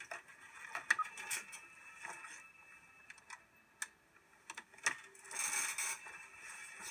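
Scattered light clicks and taps, with a short rustle about five seconds in, as a small object is handled.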